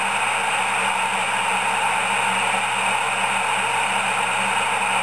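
Midland 77-285 CB radio's speaker giving a steady hiss of open-channel static with the squelch open and nobody transmitting, over a faint low hum.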